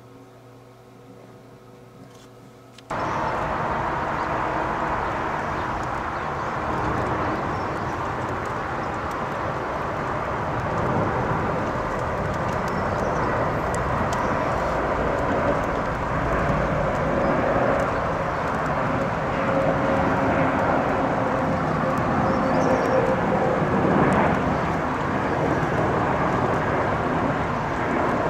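Airbus A321neo airliner with CFM LEAP-1A turbofan engines passing overhead on approach, landing gear down: a steady jet rumble that cuts in suddenly about three seconds in and grows slightly louder toward the end, with a few faint drifting engine tones. Before it, a faint steady electrical hum.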